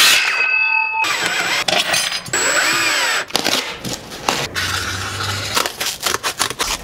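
A quick string of workshop sounds: a power tool runs briefly with a rising-and-falling whine, then come many short knocks, rustles and cutting noises.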